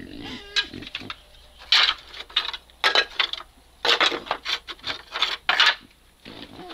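Corrugated asbestos-cement slate roofing sheets grating and scraping against each other and the ground as they are grabbed and dragged, in a run of rough scrapes of uneven length.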